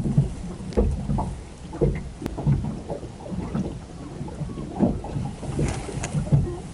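Small waves slapping against the hull of a small moored fishing boat (kase): irregular low knocks and splashes, one every half second to a second.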